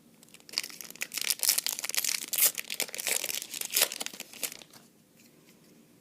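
A trading card booster pack wrapper being torn open and crinkled: a dense crackling rustle lasting about four seconds that stops shortly before the end.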